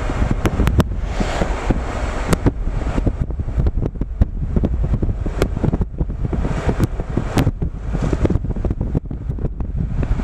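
Wind buffeting the microphone with a heavy low rumble and frequent sharp pops, over the wash of Pacific Ocean waves.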